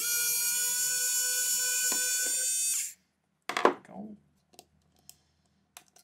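Small electric precision screwdriver whirring steadily for nearly three seconds as it backs out the PH0 screw on the battery cover, then stopping abruptly. A sharp knock follows about half a second later, then a few light clicks.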